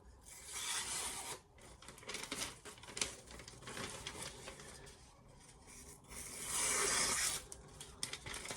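A knife blade rasping in two long strokes of about a second each, the first near the start and the second past the middle, with light handling clicks and taps between them.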